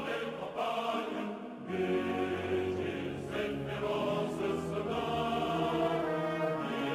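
Background choral music: sustained sung chords, the low voices falling away near the start and coming back in about two seconds in.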